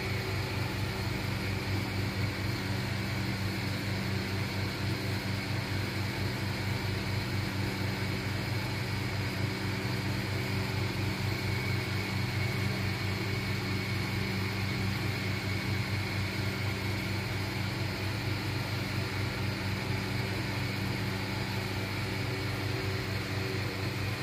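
Steady mechanical hum of a running motor, unchanging throughout.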